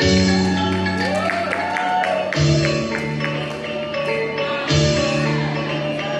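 Music through a PA: sustained chords that change about every two and a half seconds, with a few gliding notes in the first two seconds.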